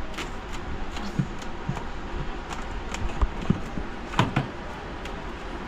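Light knocks and clicks of a hand working inside an empty, switched-off refrigerator, with plastic parts of the fridge liner and compartments being touched and handled while it is cleaned. The knocks are scattered, a few a second apart, over a steady background hiss.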